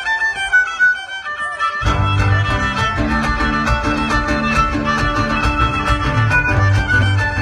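A live huasteco string trio playing a son huasteco: the violin plays alone for about the first two seconds, then the guitars join in with a steady rhythmic strum under the violin's melody.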